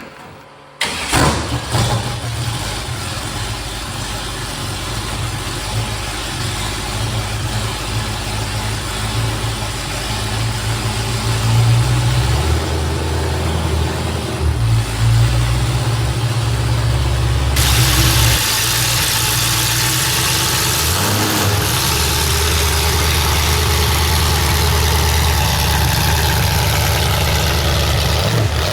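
A vehicle engine running, its speed stepping up and down. It starts abruptly about a second in, and a steady hiss is added about two-thirds of the way through.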